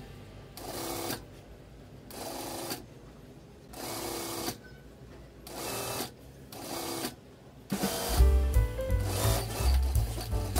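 Industrial sewing machine stitching in short runs of about a second, stopping between each while the fabric is folded into pleats. Background music with a beat comes up near the end.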